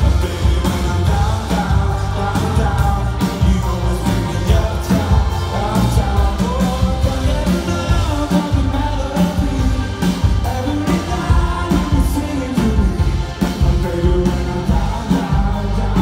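Live band playing an upbeat pop-rock song: a male lead voice singing over electric guitar, bass and a steady drum beat, heard from within the audience.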